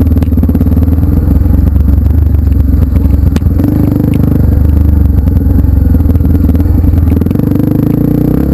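Off-road trail motorcycle engine running steadily and loud at close range, with one sharp click about three seconds in.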